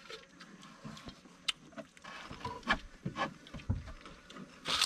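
People eating by hand from metal plates: scattered short crunches and clicks of food and fingers against the plates. There is a low thump a little before the end and a sharper crackle near the end.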